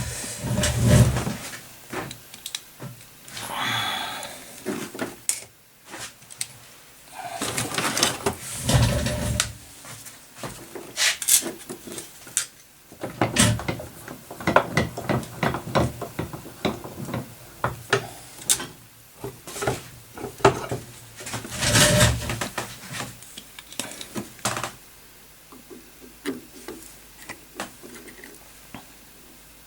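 Irregular clicks, taps and knocks of tools and small parts being handled on a workbench, with a few louder thuds about a second in, around nine seconds and around twenty-two seconds.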